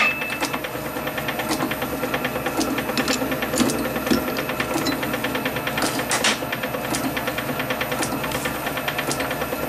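A small machine running with a steady, rapid ticking clatter, with a few sharper knocks and clicks of metal being handled, the loudest about six seconds in.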